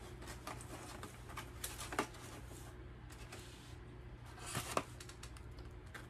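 Faint clicks and taps of a foam egg carton being handled and tilted, with a sharper click about two seconds in and a few more near the end, over a low steady hum.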